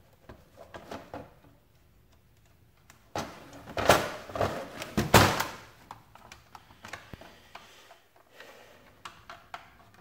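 Handling knocks and clunks of a sealed lead-acid battery and its cable connectors being settled into a hard plastic watertight dry box, with a cluster of loud thuds about four to five seconds in and lighter clicks and rustling around it.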